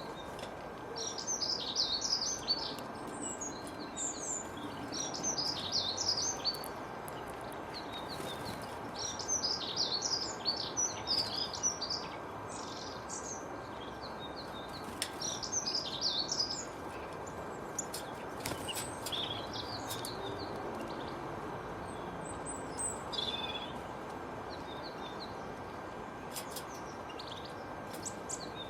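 Small birds chirping and twittering in short clusters of quick high notes, busiest in the first half and thinning out later, over a steady background hiss.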